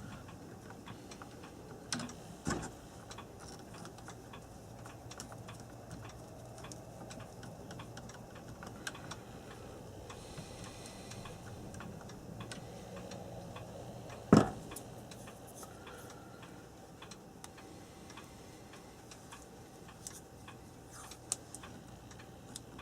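Quiet hand work on electrical wiring with twist-on wire nuts: scattered small clicks and taps, with one sharper knock about two-thirds of the way through, over a faint steady hum.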